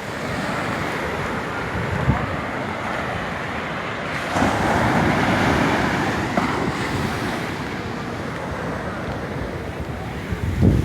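Ocean surf washing continuously onto a beach, swelling louder as a wave breaks about four seconds in and easing off after. Wind buffets the microphone near the end.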